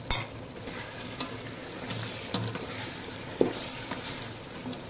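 Chicken and masala frying and sizzling in an aluminium pot while a spatula stirs them, scraping through the food. The spatula knocks against the pot a few times, loudest about three and a half seconds in.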